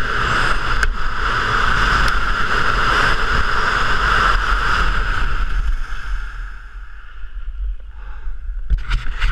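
Steady rushing of wind over a body-mounted action camera and skis sliding on hard-packed snow during a fast giant slalom descent; it eases for a couple of seconds near the end, then rises again with a few sharp knocks.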